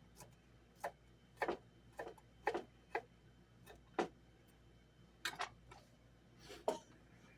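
A series of light, irregular clicks and knocks from kitchen items being handled, about a dozen sharp taps spread unevenly over several seconds.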